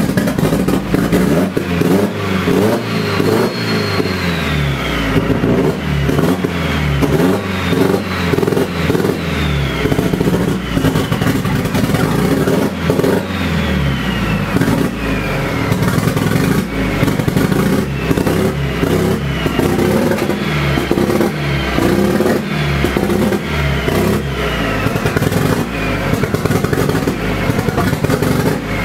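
A turbocharged Nissan SR20DET four-cylinder engine is running unevenly, its revs rising and falling again and again, on its first start after standing for a year and a half. It is running rough because the start map and ignition timing are not yet set up. A whistle falls in pitch several times as the revs come down.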